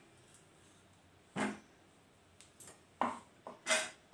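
A few short, separate knocks and clinks of kitchen utensils and cookware, with quiet gaps between them.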